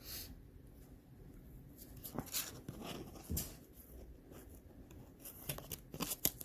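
Lenormand cards and their cardboard box being handled: faint, irregular rustling and sliding with scattered light taps and clicks.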